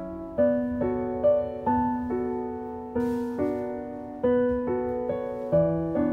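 Background solo piano music: a gentle piece with single notes and chords struck about every half second, each ringing and fading before the next.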